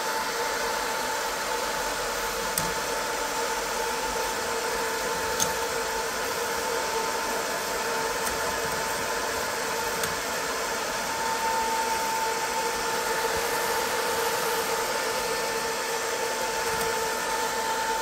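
The cooling fan on top of a Longer 20-watt diode laser module runs continuously with no grille cover. It makes a steady whir with two steady tones in it, and a couple of faint ticks.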